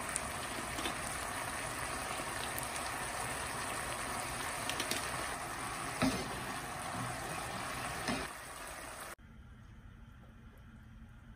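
Chili sauce bubbling at a simmer in a frying pan as it reduces to a thick consistency, stirred with a wooden spoon that knocks against the pan a few times. The bubbling cuts off abruptly about nine seconds in, leaving only quiet room tone.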